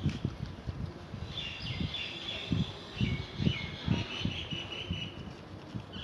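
Small birds chirping in quick repeated calls through the middle, over irregular low knocks and bumps from handling equipment close to the microphone.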